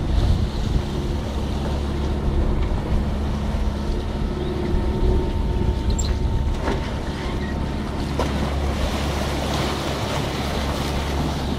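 Wind buffeting the microphone over the rush and splash of choppy sea water along a sailboat's hull, with a steady low hum underneath.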